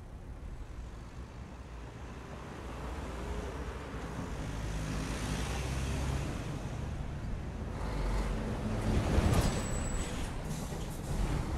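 City traffic noise, growing louder as a vehicle passes about nine seconds in, with a brief high squeal at its loudest.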